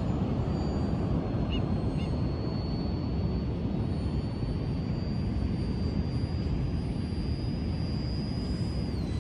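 Radio-controlled A-10 Thunderbolt model jet's turbine whining in flight, a thin high steady tone that creeps slowly upward and then drops about nine seconds in. Under it, a steady low rush of wind and surf.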